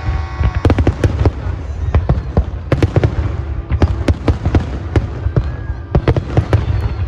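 Fireworks going off: a rapid, irregular string of sharp bangs over a steady low rumble.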